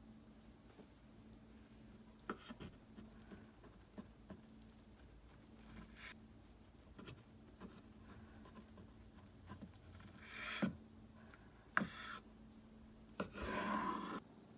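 Kitchen knife cutting through a thick rolled omelette and knocking on a wooden cutting board: scattered sharp knocks, with longer rubbing slicing strokes near the end.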